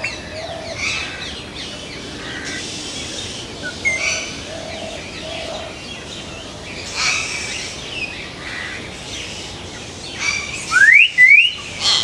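Hill myna calling: scattered short chirps and whistles among softer bird chirps, then two loud rising whistles near the end.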